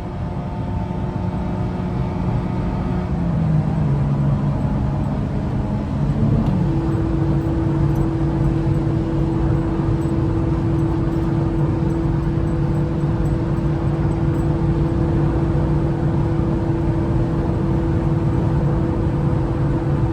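Peugeot car engine pulling hard, heard from inside the car: its tone drops about three seconds in at a gear change, then it settles into running at steady high revs.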